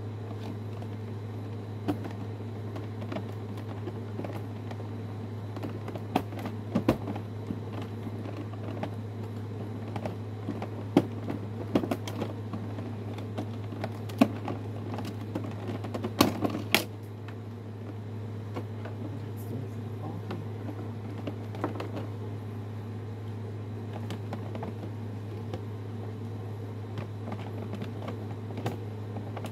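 Irregular small clicks, creaks and knocks of a boxed toy robot being handled and worked loose from its plastic and cardboard packaging, with a cluster of louder knocks about halfway through, over a steady low hum.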